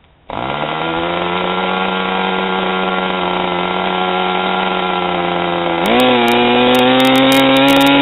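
Two-stroke glow-fuel model airplane engine catching on a hand flip of the propeller and running steadily at high speed. About six seconds in its pitch rises and it holds at a higher speed.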